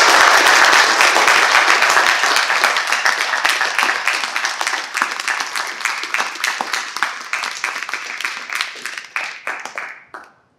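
Audience applauding: a dense wash of clapping at first that thins out to scattered single claps and dies away near the end.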